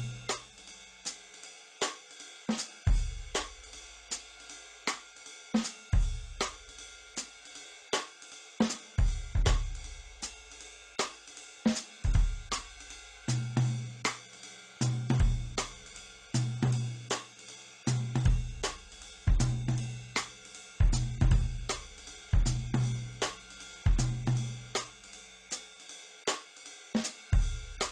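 Instrumental background music with a drum kit playing a steady beat on hi-hat, cymbal, snare and bass drum; a low bass line comes in about halfway through.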